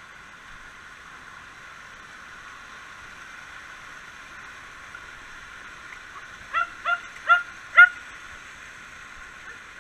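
Rushing mountain stream pouring over rocks, steady throughout. Past the middle a cocker spaniel gives four short, high yips in quick succession, about two a second, louder than the water.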